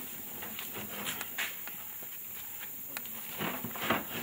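Irregular scuffs, taps and knocks of a wooden crate being pushed and steadied on a pickup truck bed, with louder bursts about a second in and again near the end.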